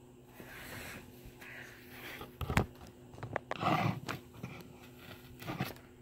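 Hampton Bay Littleton 42-inch ceiling fan running with a steady low hum, overlaid by irregular rustling and knocks, the sharpest knock about two and a half seconds in and a longer rustle around four seconds in.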